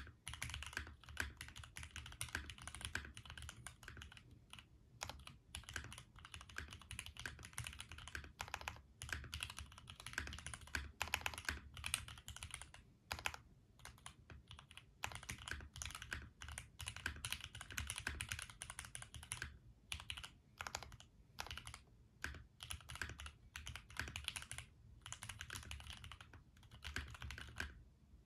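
Fast typing on a Tofu65 mechanical keyboard (acrylic case, aluminium plate, lubed Gateron milky yellow linear switches, HK Gaming 9009 keycaps): a dense run of clacky keystrokes, with short breaks every few seconds.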